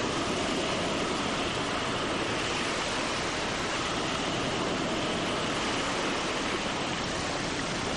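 Ocean surf: a steady, unbroken rush of waves that starts and stops abruptly.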